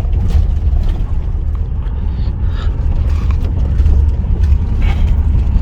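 Inside the cabin of a Tata Harrier crawling in first or second gear over a rocky, unpaved track: a steady heavy rumble from tyres and suspension, with scattered rattles and creaks from the cabin as the SUV jolts.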